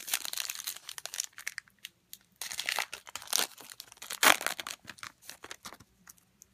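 Foil wrapper of a Score football card pack being torn open and crinkled by hand: a few rustling, crackling bursts with one sharp crackle about four seconds in, then small scattered clicks.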